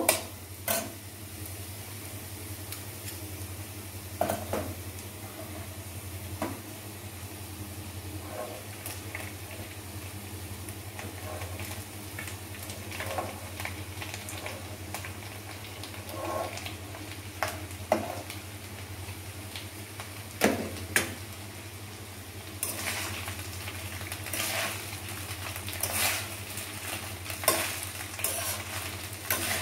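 Metal spatula scraping and tapping in a non-stick kadai as sliced beans and carrots sizzle in hot oil. Cooked basmati rice is then tipped in and stirred through the vegetables, the scraping growing busier near the end, over a steady low hum.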